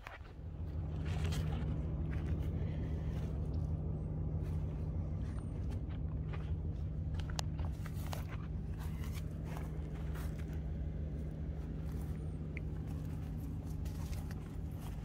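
A steady low hum that starts suddenly and holds at an even pitch, with footsteps and light scuffs on dry grass.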